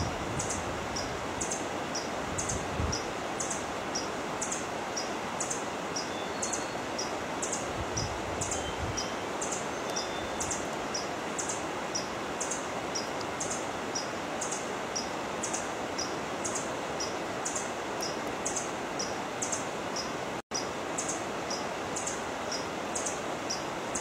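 Forest ambience: a steady rustling hiss with a high two-note chirp repeated evenly, about one and a half times a second, and a few faint short whistled bird notes. The sound cuts out for a split second about twenty seconds in.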